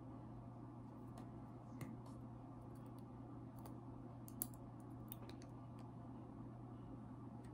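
Scattered small clicks of a metal needle driver and tissue forceps being handled while stitching a suture through a silicone practice pad, with one sharper click about four and a half seconds in, over a faint steady hum.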